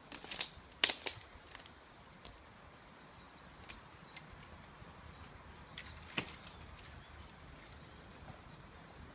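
Dry twigs and dead branches snapping and crackling under a person's feet walking through woodland brush: a quick cluster of sharp cracks in the first second, then scattered fainter ones, with another clear crack about six seconds in.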